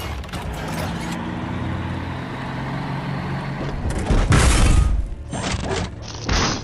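Dramatic film-score music holding a low sustained chord, then a loud explosion boom about four seconds in, with a shorter blast near the end.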